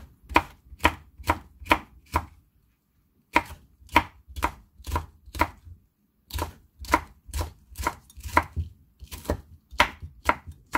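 Kitchen knife slicing a red chili pepper on a wooden cutting board: sharp knocks of the blade on the board, about two to three a second, with two short pauses, a little over two seconds in and near the middle.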